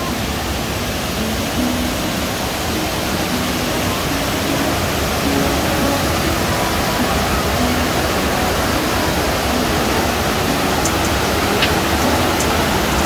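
Waterfall: a steady, even rushing of falling water.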